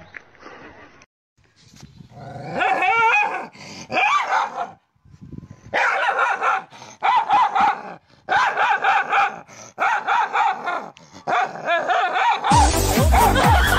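A dog giving a string of short, wavering yelping calls, each under a second long, with brief breaks between. Loud music with a heavy beat cuts in near the end.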